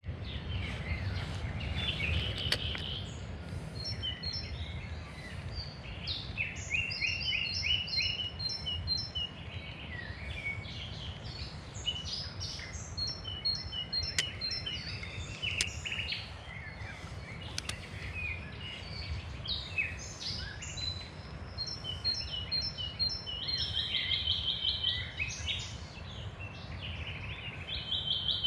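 Several birds singing and calling together, overlapping phrases of quick repeated chirps and trills, over a steady low rumble.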